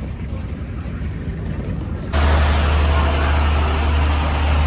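Low rumbling background, then about two seconds in a sudden jump to the loud steady rumble and rushing noise of a moving train.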